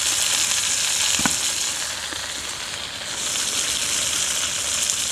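Minute steak sizzling in a frying pan on a camping gas stove: a steady, high frying hiss that swells twice.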